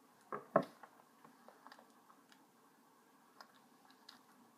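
Faint handling sounds from hands working a ribbon bow on a plush toy: two soft knocks about half a second in, then scattered faint clicks and rustles.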